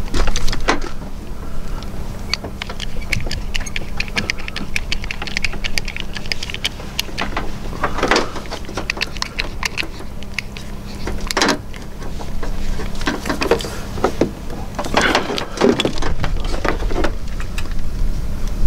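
Hand-pumped hydraulic crimper crimping a lug onto a copper battery cable: a quick run of small clicks as the handles are worked, with a few louder clunks.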